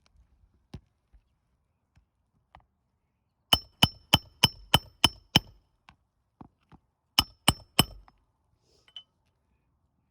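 Hammer driving roofing nails into an asphalt shingle: a run of seven sharp, ringing blows at about three a second, then a pause and three more.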